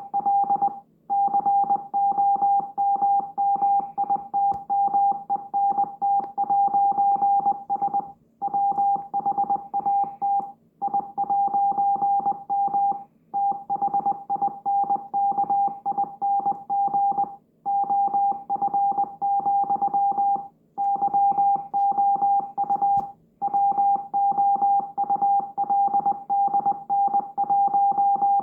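Morse code: a single steady beep keyed rapidly on and off in dots and dashes, with short breaks every few seconds between groups.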